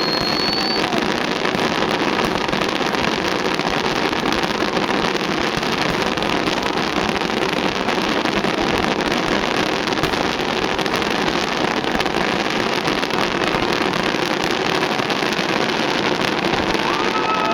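Fireworks finale: a dense, unbroken rumble of many shells bursting together, with no single bang standing out.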